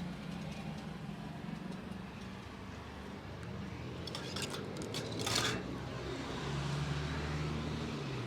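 Road traffic droning and passing by, with a few clicks and a short rush of hissing noise about five seconds in.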